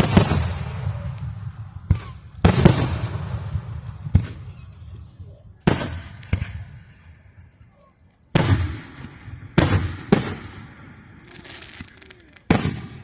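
A fireworks display: about ten sharp bangs at irregular intervals, several coming close together, most trailing off over a second or so.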